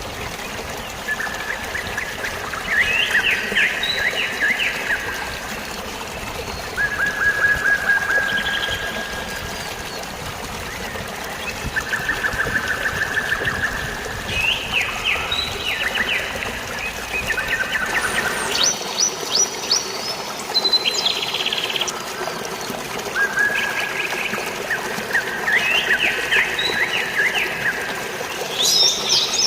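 Steady rush of flowing water with songbirds singing over it: a buzzy trill followed by quick rising chirps, repeated every few seconds. About two-thirds of the way through, the deep part of the water sound drops away while the birdsong carries on.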